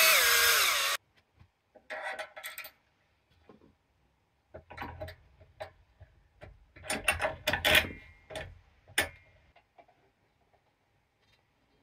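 Bosch cordless drill-driver spinning a bolt through a 3D-printed sleeve, its motor whine falling in pitch and cutting off about a second in. Then a run of knocks and clicks as the sleeve and bolt are fitted by hand into the workout bench's metal pivot, loudest about seven to eight seconds in, with one sharp click near nine seconds.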